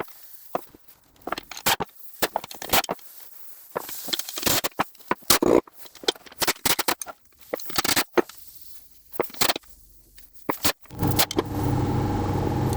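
Hand tools clinking and scraping on metal in irregular sharp knocks while the Gardner diesel's sump bolts are undone. Near the end, a steady motor hum comes in for about three seconds and cuts off suddenly.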